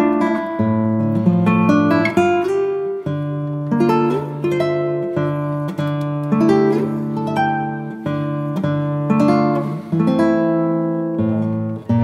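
Instrumental music: plucked acoustic guitar notes over a low bass line.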